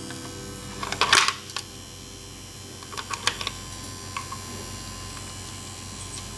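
Plastic toy parts being handled: a brief rustle about a second in, then scattered light clicks as a toy rescue boat and its diver figure are moved, over a faint steady hum.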